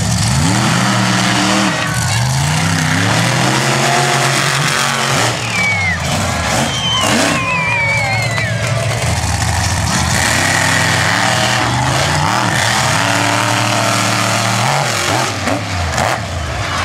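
Monster truck engines revving hard again and again, their pitch climbing and dropping as the trucks drive and jump across a dirt track. A few high whistling glides sound about halfway through.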